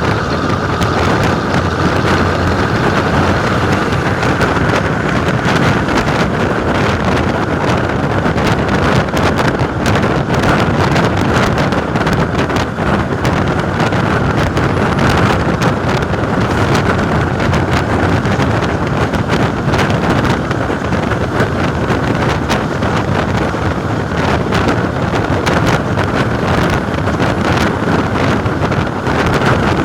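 Volvo B10M bus's horizontal six-cylinder diesel running steadily on the move, mixed with heavy wind noise on the microphone.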